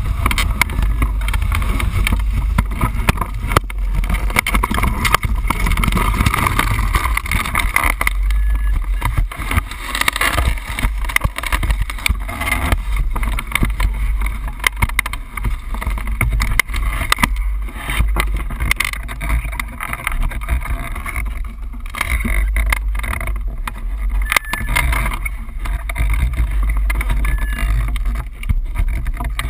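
Wind buffeting the microphone of a camera mounted on a hang glider's control frame: a loud, steady low rumble with irregular short knocks.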